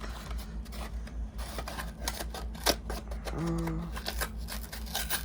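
Plastic and cardboard packaging of a die-cast toy car being pried open and handled: a run of small clicks, taps and crinkles. A short hummed voice sound comes about three and a half seconds in.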